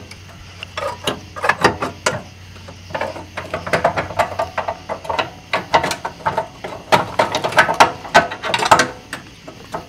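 Irregular metal clanks, knocks and scrapes as a steel motor-mount bracket is worked into place against the car's underbody, with a dense run of knocks near the end.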